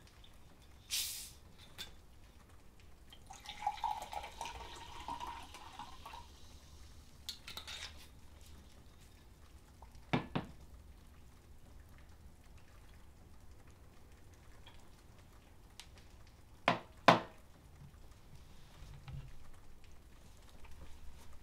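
Liquid poured from a bottle into a glass for a couple of seconds, after a short rustle. Later there is a single sharp knock, and near the end a louder double knock.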